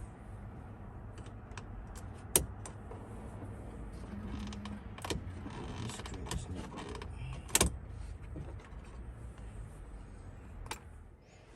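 Plastic dashboard trim on an Audi Q7 creaking and clicking as it is handled and worked loose. A few sharp clicks stand out, the loudest about two seconds in and near the middle, over a low steady hum.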